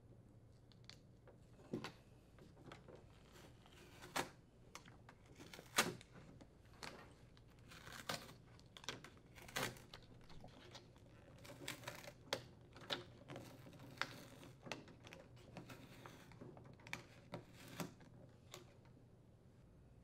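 Faint handling noise: scattered light clicks and crinkling as a thin plastic control-panel overlay is peeled off a plastic air-conditioner grille and handled.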